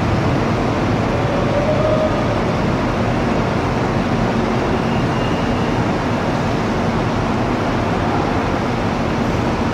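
Bus engines running: a loud, steady rumble.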